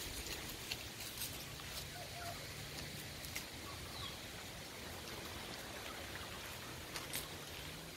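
Quiet outdoor ambience with a steady low hum and a few faint ticks. A couple of faint, short bird calls come about two and four seconds in.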